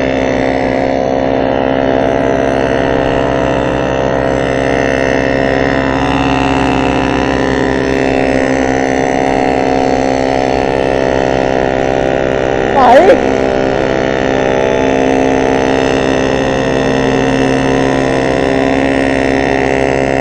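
Two small two-stroke moped engines running steadily at high revs on an uphill climb, a constant buzz with many overtones. About 13 seconds in, a short loud sound sweeps sharply down in pitch over it.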